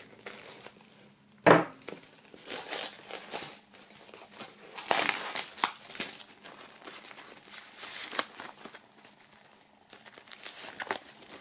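Plastic shrink-wrap crinkling and tearing as it is cut open and peeled back from a vinyl LP sleeve, in irregular crackles with a sharp one about a second and a half in.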